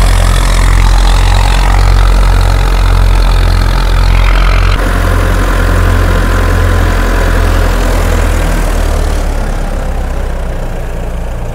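Tractor diesel engine running steadily while driving a wheat thresher, a deep mechanical hum with a pulse about twice a second. The sound changes abruptly about five seconds in and fades toward the end.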